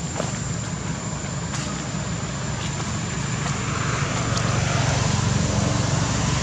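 A steady engine hum under a general outdoor hiss, growing louder in the second half as the engine comes closer.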